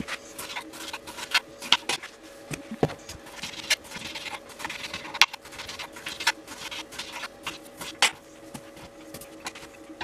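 Knife cutting raw chicken and turkey breast into pieces on a plastic cutting board: irregular taps and knocks of the blade and meat on the board, over a faint steady hum.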